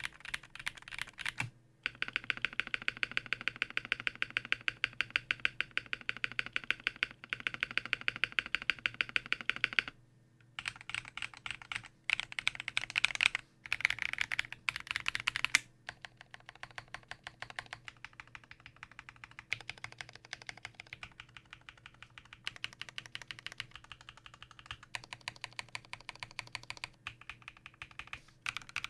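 Mechanical keyboard typing on a KBD8X mk II with a black polycarbonate case, brass plate, lubed Everglide Dark Jade linear switches and GMK ABS keycaps. Keys are struck in fast, dense runs with brief pauses about ten seconds in and again a few seconds later. The keystrokes are softer in the second half.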